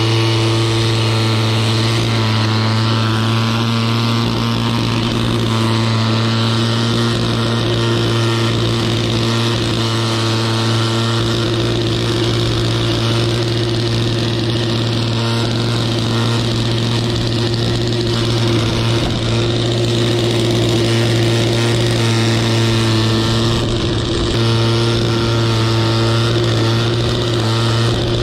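Two-stroke engine of a Kubota GC-S500 self-propelled grass mower running steadily under load while it mows overgrown grass.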